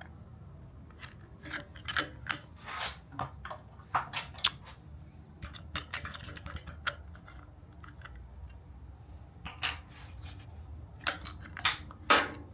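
Loose wiring cover on a bench drill press being wiggled and handled: irregular plastic clicks and clattering knocks in clusters, the loudest near the end.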